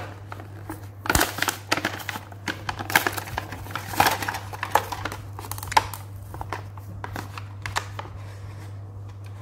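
Stiff clear plastic blister packaging crinkling and crackling as it is pried and torn open by hand, in irregular bursts of sharp crackles. A steady low hum runs underneath.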